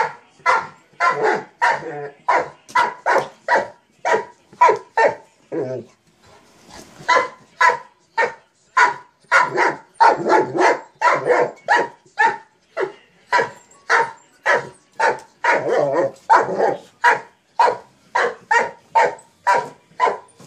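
Mastiff barking over and over, about two to three short barks a second, with a brief pause about six seconds in.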